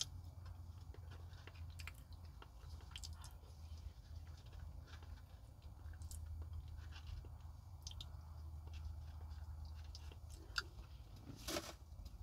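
Close-miked chewing: soft wet mouth clicks and smacks as a person eats a forkful of food, over a steady low hum. A sharper click stands out near the end.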